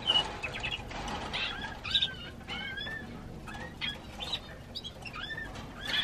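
Canaries chirping: many short, arched call notes, several a second, some dipping and some rising in pitch.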